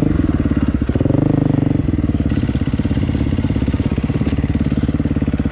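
Dirt bike engine running as the bike is ridden along a trail, rising briefly in pitch about a second in and then settling back to a steady pulse.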